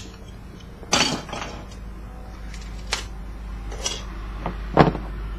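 Small metal parts and hand tools clinking and clattering on a table as stripped copper pieces are handled: a louder clatter about a second in, a few lighter clinks, and a sharper knock near the end.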